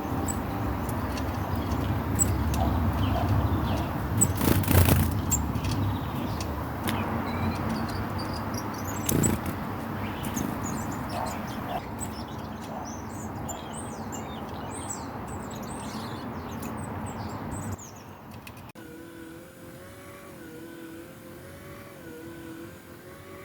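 Steady road-traffic rumble, swelling loudest as a vehicle passes about four to five seconds in, with small birds chirping high above it. Near the end the sound cuts suddenly to a quieter, wavering steady tone.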